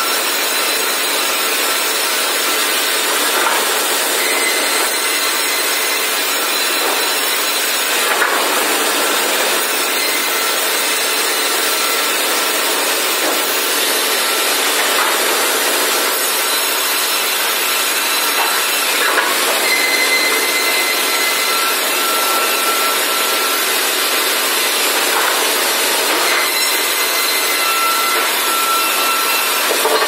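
Sawmill processing line running as squared timber beams are fed along roller conveyors through the saws: a loud, steady hiss of machinery and wood being cut, with short whines now and then and a few light knocks.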